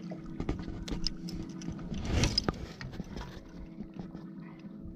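A boat motor humming steadily, with small clicks and knocks from handling and a brief louder scuffle about two seconds in.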